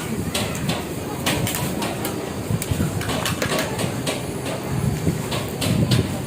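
Open-air market bustle: repeated knocks and clatter, like dishes and utensils, over indistinct background voices.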